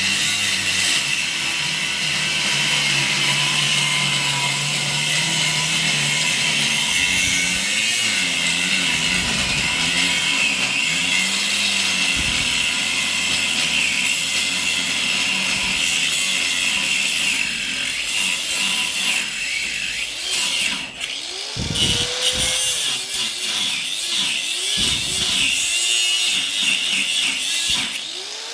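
A power tool cuts through the steel of a tractor's Category 1 ball swivel, its motor tone dipping and recovering under load over a steady hiss. In the last several seconds the cutting breaks off and resumes, and the motor pitch rises and falls several times.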